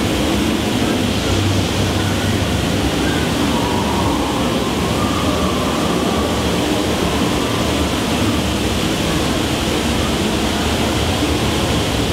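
Steady, loud rushing of water, an even roar that does not let up.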